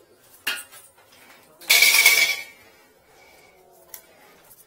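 Clinks and a loud scrape as a flexible-shaft drain-cleaning cable and its metal reel frame are handled. The scrape comes about two seconds in and lasts under a second, with a brief squeak in it.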